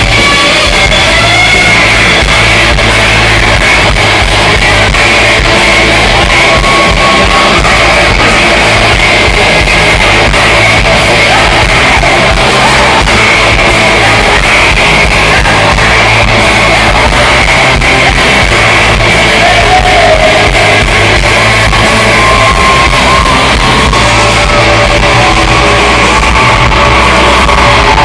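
Rock band playing live: electric guitar and drums with vocals, loud and dense, heard from within the crowd.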